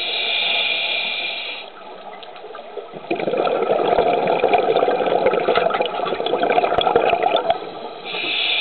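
Scuba diver's regulator breathing underwater: a high hiss of inhalation for about the first second and a half, then a long rush of exhaled bubbles from about three seconds in to about seven and a half, and another inhale hiss near the end.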